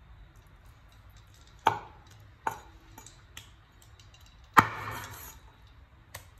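A kitchen knife chopping frog meat on a wooden cutting board: half a dozen sharp, irregular knocks of the blade on the board, the loudest about two-thirds of the way through.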